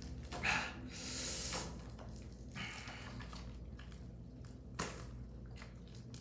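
Plastic shrink-wrap being picked at and peeled off a trading card box: a few soft crinkling rustles in the first three seconds, then a small click about five seconds in.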